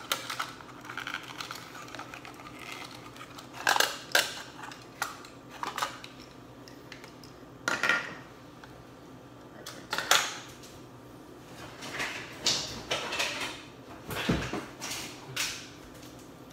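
Hand tools and the metal parts of a vintage camera clinking and knocking as they are worked, in irregular sharp clicks, with one duller thump about fourteen seconds in.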